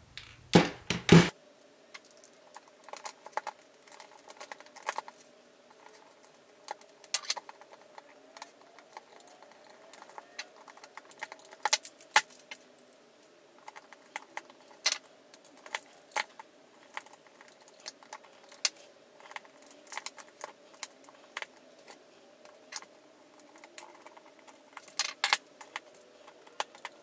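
Irregular light clicks and ticks of small parts being handled and fitted: metal screws, aluminium spacers and plastic parts of an RC car kit being assembled by hand. A few sharper knocks stand out about a second in, around twelve seconds and around twenty-five seconds.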